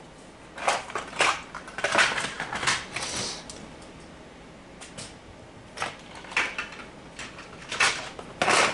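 Rummaging through a box of HO-scale model trains: items knocked, shuffled and rustled in short clattering clusters, with a pause in the middle.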